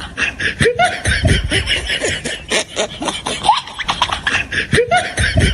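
Snickering laughter mixed with sputtering fart sound effects played as a prank.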